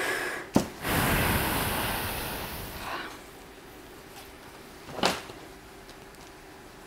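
Plastic packaging bag crinkling and rustling for about two seconds after a click, fading out, then a single sharp tap about five seconds in.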